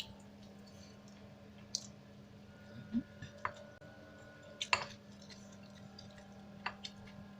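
Eating sounds: a few scattered sharp clicks, like a spoon on a plate, with soft wet chewing of tempeh and bean sprout stir-fry, over a steady low hum.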